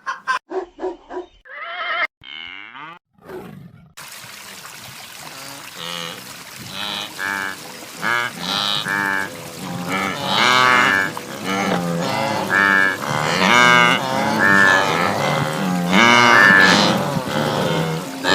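Herd of wildebeest (gnus) calling, many overlapping calls from about four seconds in, growing louder toward the end. Before that, a few short clicks and a warbling tone.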